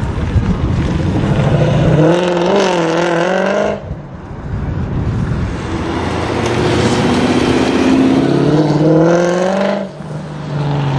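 Mercedes C63 AMG Black Series's V8 through a decatted iPE exhaust, revving hard with its note wavering up and down, then dropping away abruptly about four seconds in. It climbs steadily in pitch as the car accelerates and drops away again near the end.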